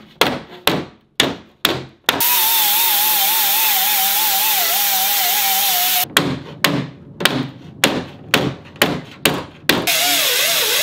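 Hammer-and-dolly work on a butt-welded steel body panel: sharp metal strikes about two a second, knocking out the heat-shrunk dip along the weld. Between runs of strikes, a small angle grinder runs on the weld seam with a steady hiss and a wavering whine, about two seconds in and again near the end.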